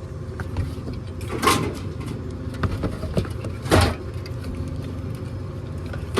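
Soda cans knocking as they are loaded by hand into a drink vending machine's column: two louder clunks, about a second and a half and nearly four seconds in, over a steady low hum.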